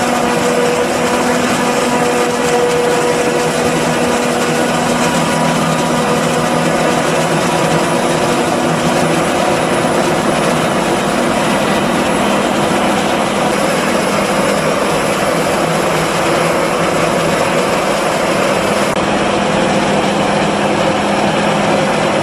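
Claas Jaguar 950 forage harvester working at full load, chopping corn and blowing it into a forage wagon. It makes a loud, steady machine drone with a constant whine over the rush of the chopped crop, while a tractor runs alongside.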